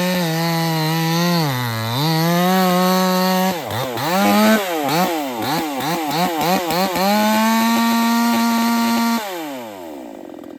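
Proyama gasoline chainsaw engine running at high revs with a brief dip about two seconds in. It is then revved up and down rapidly, about twice a second, held at full throttle, and near the end released so the engine winds down.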